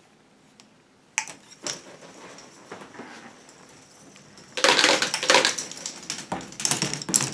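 Many plastic K'NEX balls clattering and rattling through a K'NEX ball machine's tracks, all released at once. A few scattered clicks come first, then a sudden, much louder run of dense clattering starts about four and a half seconds in.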